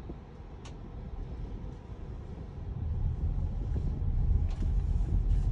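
Maruti Suzuki Grand Vitara driving, its low engine and road rumble heard from inside the cabin, growing louder about halfway through. A short click sounds near the start.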